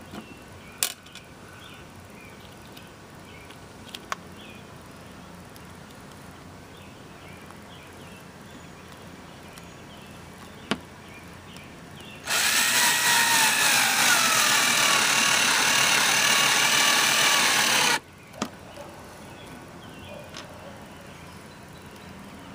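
Hart 20V cordless drill running for about six seconds as its bit drills into the toe bow of a flat shoe, the motor's whine dropping in pitch as the bit bites in. A few sharp clicks come before and just after it.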